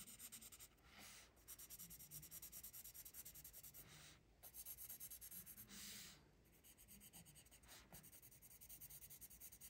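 Faint scratch of a Prismacolor colored pencil shading on a coloring-book page, in quick back-and-forth strokes with a few short pauses.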